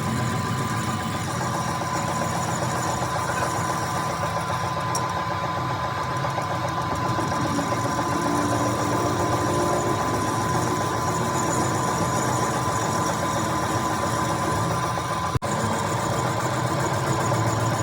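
A motor or engine running steadily, with a constant high whine and a dense rattling texture; it drops out for an instant about fifteen seconds in.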